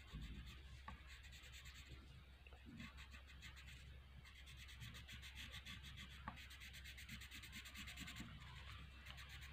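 Faint scratchy rubbing of a dark pencil shading back and forth on paper.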